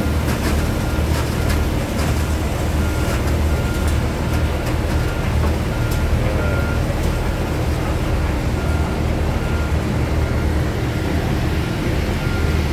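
Steady low rumble of lumber-mill machinery and conveyor running, with a faint high squeak that keeps coming and going and a few clicks near the start.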